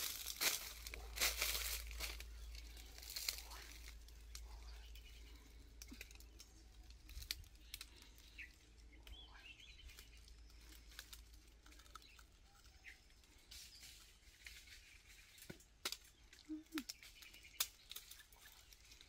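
Rustling and crackling of dry leaves and twigs, loudest in the first few seconds, then quieter with scattered small snaps and clicks as wild figs are picked off the branches.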